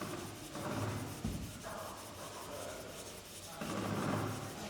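Wood being sanded with sandpaper in slow rubbing strokes, about three in a row.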